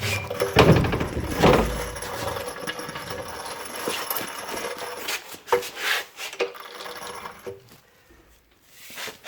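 Metallic clattering and rattling as the removed rear axle is rolled out on a jack, loudest in the first two seconds, then scattered knocks that fade out near the end.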